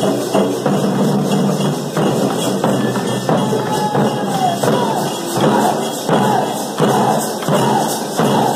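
A group of folk drummers beating round drums with sticks in a steady, driving rhythm.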